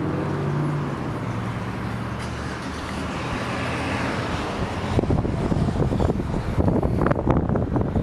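Car engine running with traffic noise around it. From about five seconds in, irregular buffeting noise hits the microphone.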